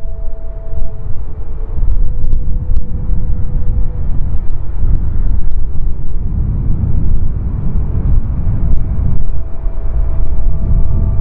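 Airbus A320neo with CFM LEAP-1A turbofans on final approach to land: a loud, steady low engine rumble, with a faint whine of steady tones that fades in the first seconds and comes back stronger near the end as the jet draws closer.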